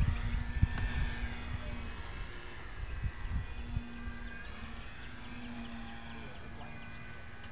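Faint, steady drone of distant electric radio-control biplanes' motors and propellers, wavering slightly in pitch as they fly overhead, over a low rumble of wind on the microphone.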